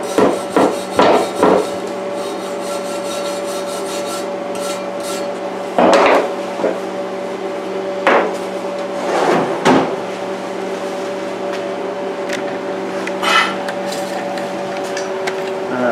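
Steel wire brush scrubbed in four quick strokes across a fresh weld bead on steel plate, cleaning off slag after chipping. Then a few scattered knocks as tools are set down on the workbench, over a steady hum.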